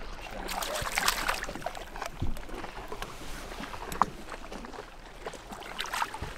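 A hooked smallmouth bass splashing at the water's surface beside the boat as it is brought in to be landed, with a burst of splashes about a second in and more near the end.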